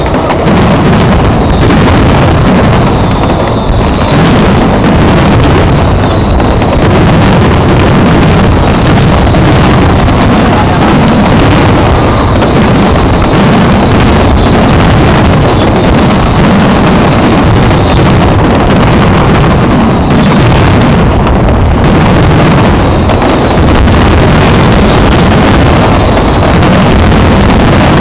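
Dense, unbroken barrage of aerial firework shells bursting in quick succession during a castillo fireworks display, so loud that the recording stays near full level.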